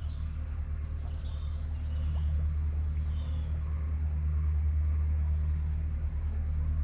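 Narrowboat engine running steadily while cruising, a low, even hum that grows slightly louder about two seconds in.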